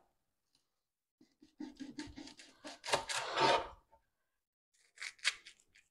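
Knife slicing okra pods on a cutting board: a run of short scraping cuts lasting about two seconds, then two quick taps near the end.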